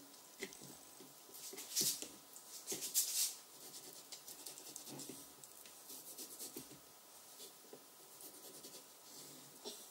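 Light rustling and scratching from hands handling the parchment-lined baking tray and its food, in two louder short bursts about two and three seconds in and fainter ones later.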